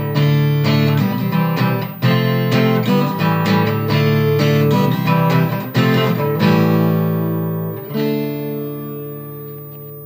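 Instrumental ending of a song: acoustic guitar strumming chords in a steady rhythm, then a last chord about eight seconds in left to ring and fade out.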